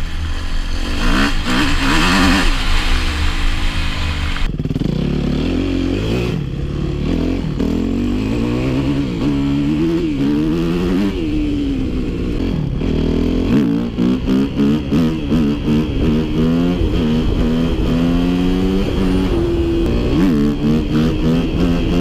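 Yamaha YZ250F dirt bike's single-cylinder engine under hard riding, its pitch rising and dropping back again and again as it revs up through the gears.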